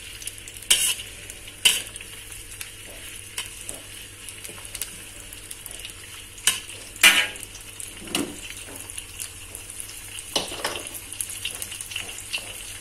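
Sliced shallots and garlic sizzling in hot oil in a wok. A metal slotted spatula stirs them, clinking and scraping against the pan every few seconds.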